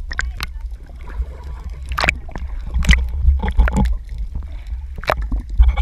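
Water sloshing and gurgling around a camera held just beneath the sea surface, with a steady low rumble and scattered sharp clicks and knocks.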